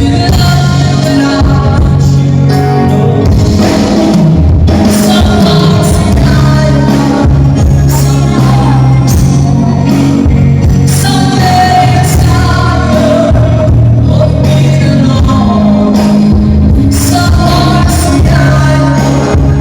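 Loud amplified music over a sound system: a singer's voice over a backing of steady bass and drums, during a concert sound check.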